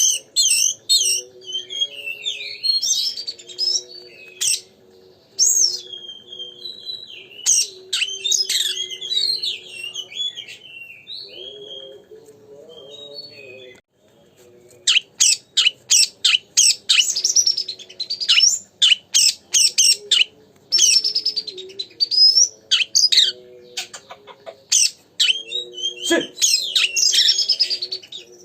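Oriental magpie-robin (kacer) singing vigorously: a fast, varied run of loud whistles and sharp chirps. The song thins out for a few seconds mid-way, then comes back as a rapid string of notes. Fainter low, stepping tones sound underneath.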